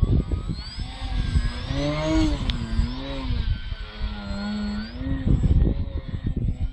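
Electric motor and propeller of an E-flite VisionAire RC aerobatic model plane whining in flight, its pitch rising and falling with the throttle as it manoeuvres. Wind rumbles on the microphone at the start and again after the whine fades near the end.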